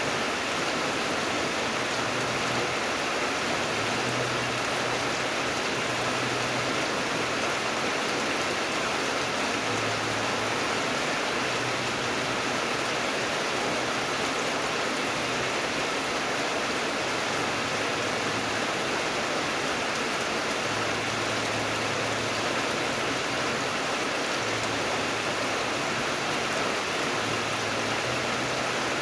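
Steady rain falling, an even unbroken hiss with no change in level. A faint low hum comes and goes underneath.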